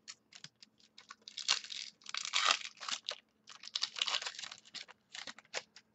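Trading cards and their packaging being handled: crinkling and rustling in several short bursts with small clicks, as the next pack of cards is opened and sorted.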